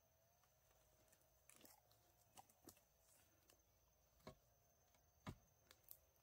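Faint, scattered knocks and taps of bamboo as a long bamboo pole is stood upright and handled, about six in all, the loudest about five seconds in.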